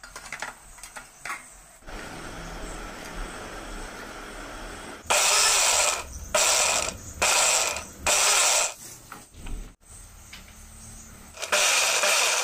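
Preethi mixer grinder motor run in short pulses: four bursts of about half a second to a second, a pause, then one more near the end, each starting and stopping abruptly. A few light metal clicks of tongs against the steel steamer come before.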